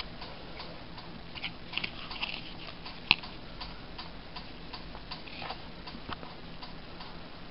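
Faint, even ticking about two a second, with a few louder clicks and short rustles as a cardboard coin holder is handled and turned in the fingers; the sharpest click comes about three seconds in.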